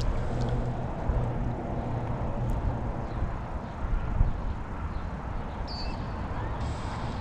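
Steady low rumble of wind buffeting the microphone, rising and falling slightly, with no clear distinct events.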